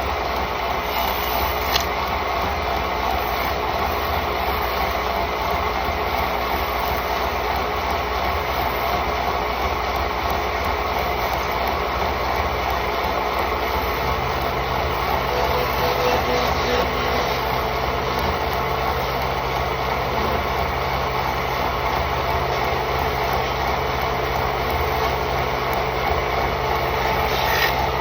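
Wood lathe running steadily: a constant motor hum under a steady, even hiss.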